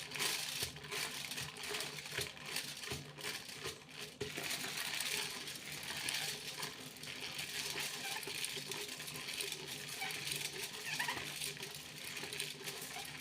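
Aluminium foil being handled and crinkled, a continuous dense crackling rustle made of many small sharp clicks.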